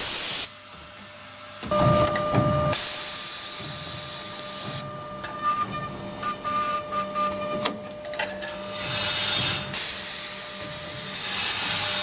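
Automated lock cylinder production machinery running: a steady machine whine with spells of hissing, and a stretch of irregular mechanical clicks and clacks midway. It drops briefly quieter about half a second in.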